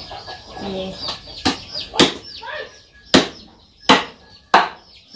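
A large knife chopping cooked chicken on a wooden cutting board: five sharp chops, spaced about half a second to a second apart.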